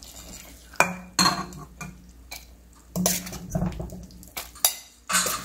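A metal serving spoon scraping and knocking against a metal kadai and a plate as curry is spooned out, a handful of separate clinks and scrapes with short pauses between.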